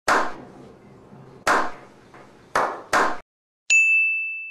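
Edited-in sound effects: four sharp hits, each with a short fading tail, the last two close together, then a single high-pitched ding about three and a half seconds in that rings on and fades.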